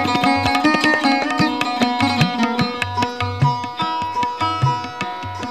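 Sarod playing Hindustani classical music live: quick runs of plucked, ringing notes over steady drone strings, with tabla strokes beating underneath.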